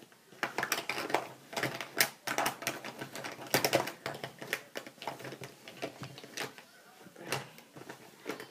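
Hands rummaging through makeup, with many irregular small clicks and knocks of cases and tubes being picked up and set down.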